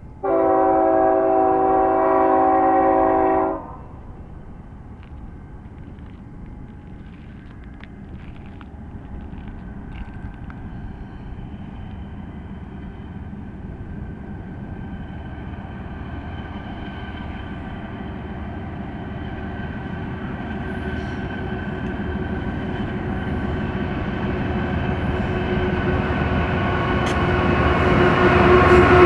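Freight locomotive air horn sounding one long blast of about three seconds, several notes at once. Then the approaching diesel-hauled stack train's engine and wheel rumble grows steadily louder as it nears.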